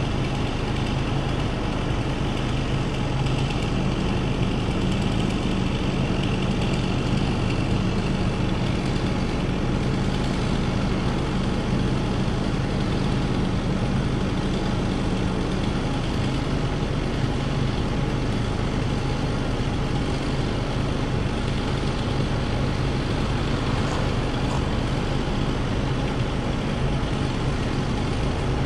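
An engine running steadily, an even low hum with no change in speed.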